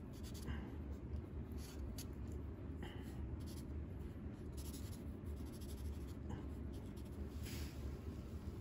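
Marker nib rubbing across sketchbook paper in a few short, faint scratchy strokes while colouring in, over a low steady hum.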